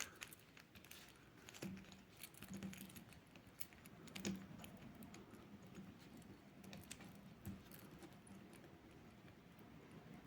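Faint, scattered small clicks and taps of a stainless steel watch bracelet and a sizing tool being handled, the clearest about four seconds in.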